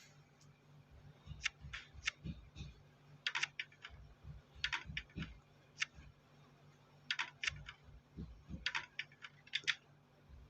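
Irregular clusters of sharp clicks and taps, two to five at a time with short gaps between, some with soft low thuds under them.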